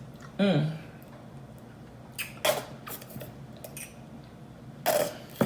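A short vocal hum, then a few brief clicks and rustles of takeout food packaging being handled.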